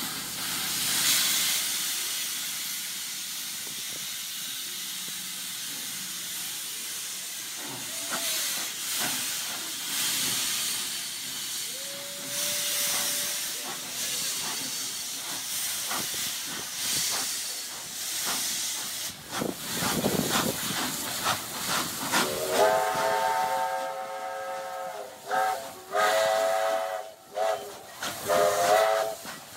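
Two steam locomotives running side by side, with a steady hiss of steam. Near the end a steam whistle sounds one long chord blast, then several short blasts.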